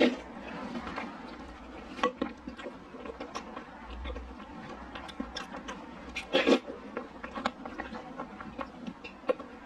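Close-miked eating of a sweet milk-tea soup with purple rice and glutinous rice balls: wet chewing and lip-smacking with many small clicks, and a ceramic spoon clinking and scraping in the bowl. A louder burst of noise comes about six and a half seconds in.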